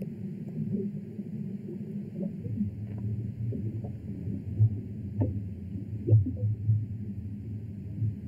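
Low, muffled rumble from the film's soundtrack, growing fuller about two seconds in, with short gliding pops and blips scattered over it, the strongest a little past the middle.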